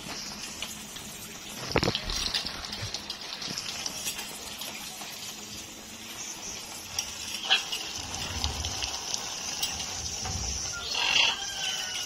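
Water spray hissing steadily as it showers blue-and-gold macaws during a bath, with a few sharp knocks and a short harsh call near the end.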